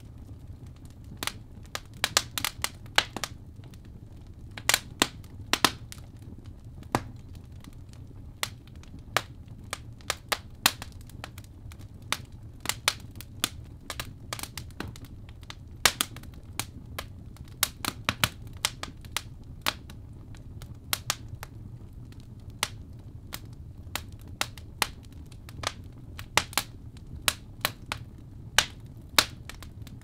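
Fireplace fire crackling: irregular sharp pops and snaps, sometimes in quick clusters, over a low steady hum of the flames.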